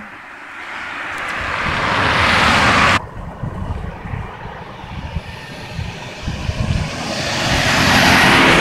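Motor vehicles passing on a road. The first one's noise builds for about three seconds and cuts off abruptly. After a low, unsteady rumble, a pickup truck goes by, its noise swelling to the loudest point near the end.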